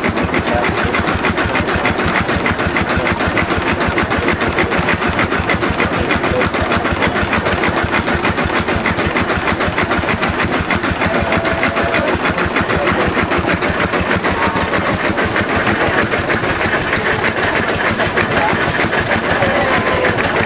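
Small vertical multi-cylinder marine steam engine running steadily, with a rapid, even beat of exhaust and valve gear.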